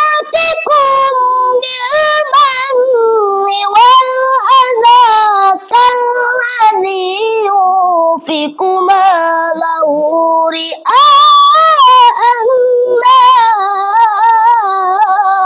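A boy's solo Quranic recitation in melodic tilawah style: long phrases of ornamented, wavering held notes with brief breaks for breath, the last phrase ending near the end.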